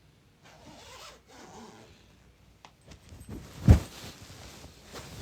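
Rustling, scraping handling noise for about two seconds, then a single short, loud low thump about three and a half seconds in.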